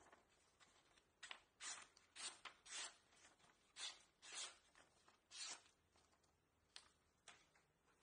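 Folding pocket knife's M390 steel blade slicing through a sheet of paper: a series of about seven short, faint cutting strokes, followed by two brief ticks near the end.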